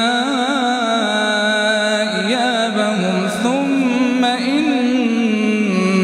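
Quran recitation: a single voice chanting in long, drawn-out melodic phrases that waver up and down in pitch.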